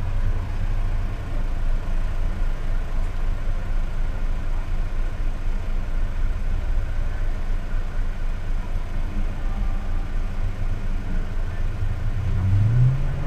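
Steady low rumble of a car engine idling, heard from inside the cabin. Near the end a sound rises in pitch.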